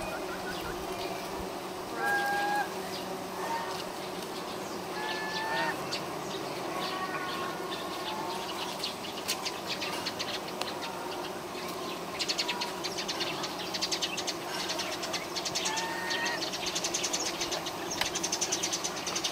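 Honeybees humming steadily around the hive entrance. A few short chirping calls come now and then, and a fast fine clicking rises over the second half.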